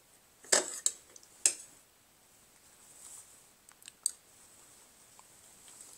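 A few sharp clicks and taps, the loudest about half a second and a second and a half in, with fainter ones around four seconds in.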